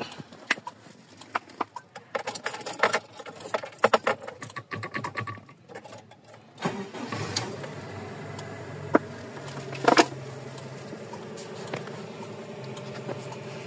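A run of light clicks and rattles, then a Toyota 1RZ four-cylinder petrol engine starts about six and a half seconds in and settles into a steady idle.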